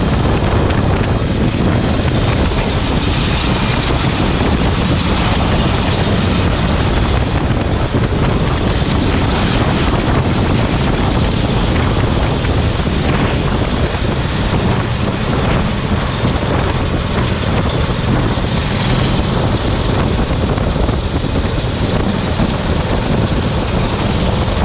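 Racing kart's engine running at speed, heard from onboard with wind rushing over the microphone.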